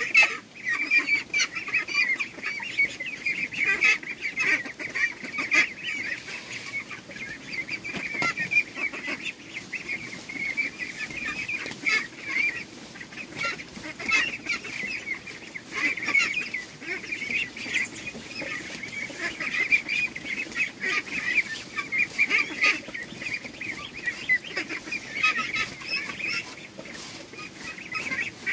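Farm fowl honking and calling without a break, with a few sharp clicks scattered through.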